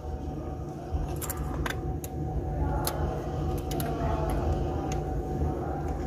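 Scattered small plastic clicks and taps as a steering-wheel airbag/horn pad and its wiring connector are handled and plugged in, over a steady low background hum.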